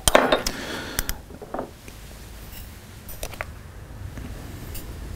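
A metal spoon scooping granulated sugar out of a glass jar: scattered light clinks of the spoon against the glass and the soft scrape of the spoon in the sugar, busiest in the first second and a half.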